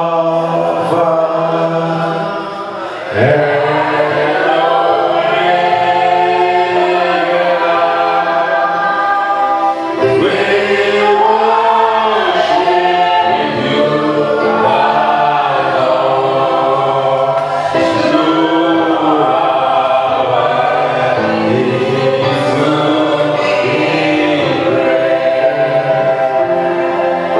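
Church congregation singing a worship song together, many voices holding long notes, with a lead singer on the microphone.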